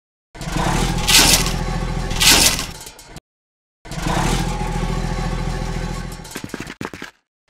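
Motor sound effect for a toy tracked ice-saw vehicle, running steadily in two stretches of about three seconds with a short gap between them. Two loud harsh grinding scrapes, about a second apart, come during the first stretch as the circular saw cuts into ice.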